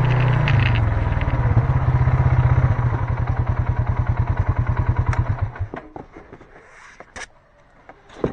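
Four-wheeler's small engine running with an even throbbing beat, then cutting off suddenly about five and a half seconds in. A few light clanks and knocks follow.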